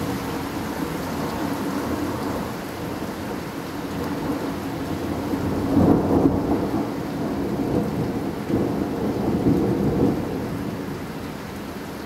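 Steady rain falling with rolling thunder rumbling through it. The thunder swells loudest about six seconds in and again around nine to ten seconds, then fades near the end.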